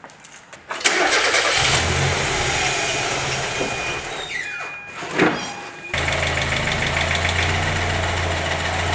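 Mazda Miata four-cylinder engine starting about a second in and then idling steadily, with an abrupt step up in level about six seconds in.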